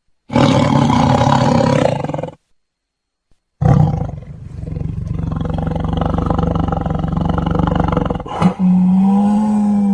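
Big cat roaring and growling: a roar of about two seconds, a short pause, then a long rumbling growl, switching near the end to a steady held roar.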